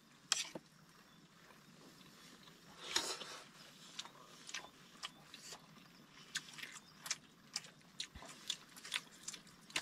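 Faint eating sounds: small irregular clicks of a spoon against a plate and of chewing, with a brief louder rustle about three seconds in.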